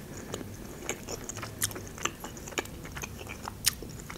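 A person chewing a green olive close to the microphone, with irregular soft mouth clicks and smacks.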